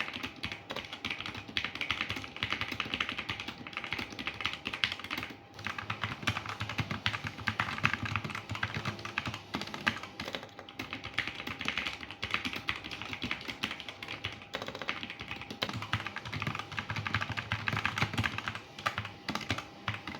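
Continuous typing on a Leven K620 mechanical keyboard with red linear switches, lubed and tape-modded: a dense run of keystroke clacks with a few brief pauses.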